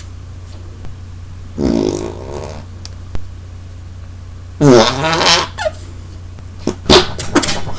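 Armpit farts, air squeezed out between a cupped hand and the armpit: a buzzing fart noise about two seconds in, a louder one about five seconds in, then a quick run of short, sharp ones near the end.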